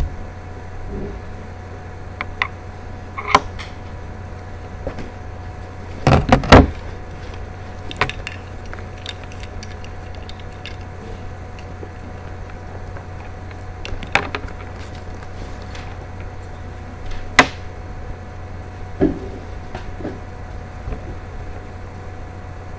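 Steady low electrical hum under scattered knocks and clicks; the loudest, a quick cluster of knocks, comes about six seconds in, with a sharp click at about seventeen seconds.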